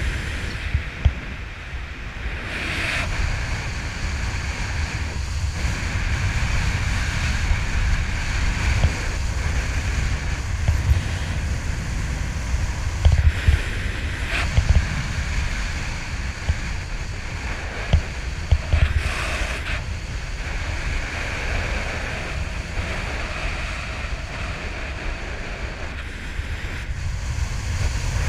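Wind rushing steadily over an action camera's microphone during a parachute descent, with a brief louder buffet now and then.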